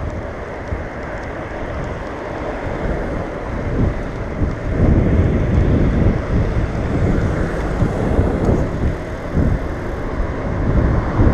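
Wind rushing over the microphone of a handlebar-mounted camera on a moving bicycle, a steady low rumble that grows louder about five seconds in.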